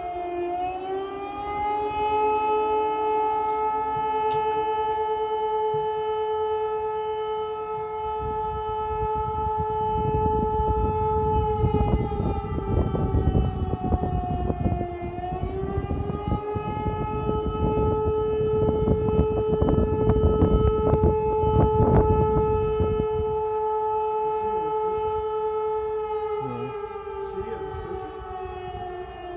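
Civil defense alarm siren wailing in two notes at once. Its pitch rises, holds steady for about ten seconds and falls away, then rises and holds again before falling near the end, with a low rumbling noise beneath it in the middle stretches.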